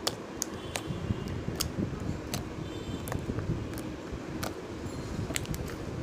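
Slime being squished and stretched by hand, with irregular small clicking pops over a low handling rumble.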